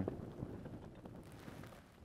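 Faint wind, a low steady rumble of wind on the microphone.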